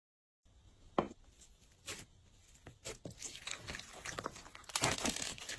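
Glossy slime being worked by hand: a few separate sticky clicks, then dense wet crackling and popping that grows louder near the end.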